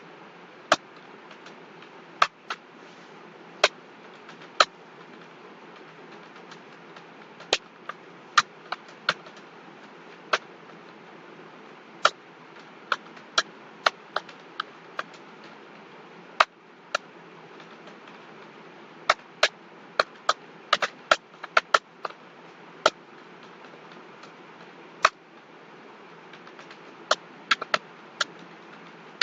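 Computer keyboard keys clicking one at a time at irregular intervals, sometimes two or three in quick succession, over a steady background hiss.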